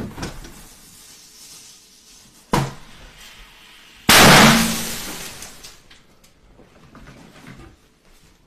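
Fireworks going off indoors: a sharp bang at the start, another about two and a half seconds in, then the loudest blast about four seconds in with a hissing tail that fades over a second or two, followed by scattered small crackles.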